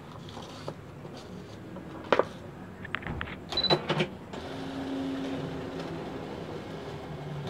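Brother GX-8250 electronic typewriter: a few sharp clicks and a brief high beep, then its internal motor mechanism whirs steadily for about three seconds.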